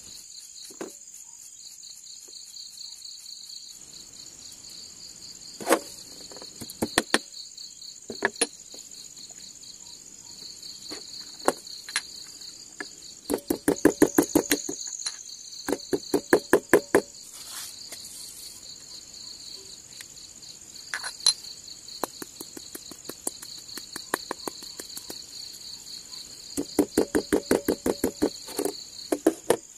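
Crickets chirring steadily in two high continuous tones. Over them come scattered single knocks and three runs of rapid, even clinking, a spoon stirring in a small cup; these clinks are the loudest sounds.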